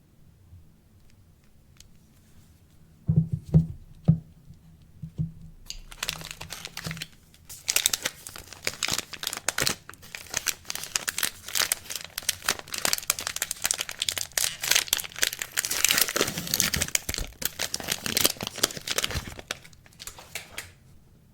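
A few knocks as a packaged soap is handled, then its wrapping is torn open and crinkled continuously for about fourteen seconds, stopping shortly before the end.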